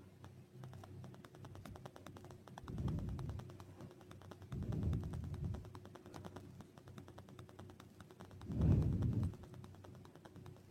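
Hands working a sewing needle and thread in needle lace: a fast run of light clicks, with a few low handling bumps, the loudest near the end.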